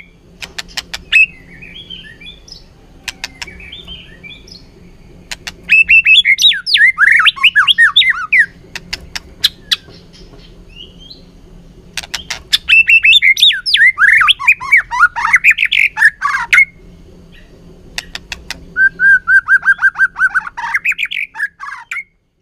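Male white-rumped shama singing three loud bouts of fast, varied whistled phrases, with soft chattering between them. Groups of sharp clicks come before the bouts: the shama's excited ticking.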